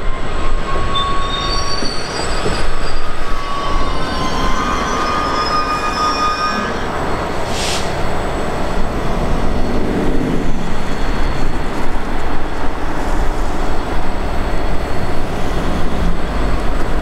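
Loaded stone hopper wagons rolling past on the rails with a continuous heavy rumble. Their wheels squeal in thin, high tones during the first several seconds; the squealing then fades into a steadier rumble.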